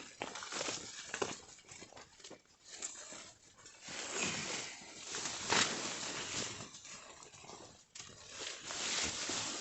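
Footsteps on a forest trail, irregular thuds and rustling of leaves and ground litter as hikers walk.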